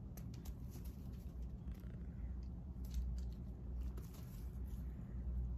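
A cat pouncing and scuffling on dirt and grass as it bats at a feather teaser toy: scattered short rustles and taps over a steady low rumble.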